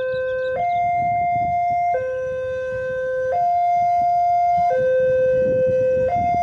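Electronic two-tone hi-lo siren, switching between a higher and a lower note about every one and a half seconds, over a low rumbling noise.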